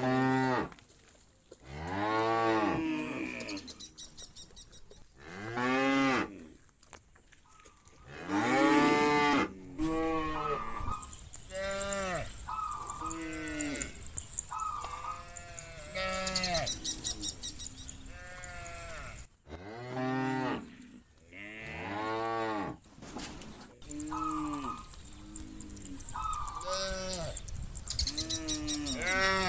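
A herd of cows mooing over and over, one call every second or two, each call rising and then falling in pitch, with several cows' calls overlapping at times.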